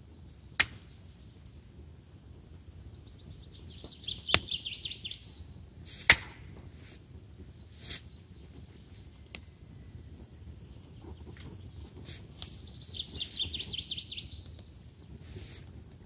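Small wood campfire crackling, with sharp pops, the loudest about half a second and six seconds in. A bird sings two short trilled phrases, about four seconds in and again near thirteen seconds.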